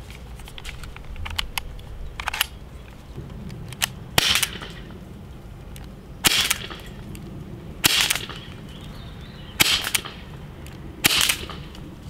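Umarex HDR 68 CO2-powered .68-calibre revolver firing five shots, one every one and a half to two seconds, each a sharp pop with a short trailing hiss. A few faint clicks come before the first shot.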